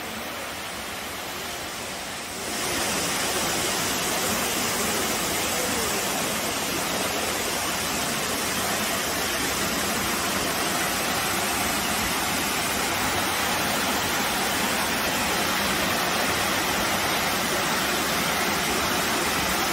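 Waterfall and the cascade below it: a steady rush of falling water, which gets louder about two and a half seconds in.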